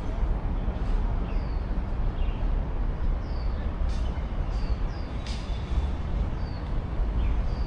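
Busy city street: a steady low traffic rumble, with a small bird giving short, high, falling chirps about once a second.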